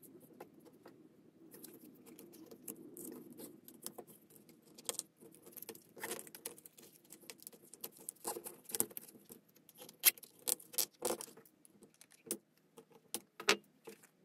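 Corrugated plastic (Coroplast) sheet being handled and folded on a fabric-covered bench: scraping and rustling over a low steady hum at first, then a scattered run of sharp clicks and taps, the loudest about ten seconds in.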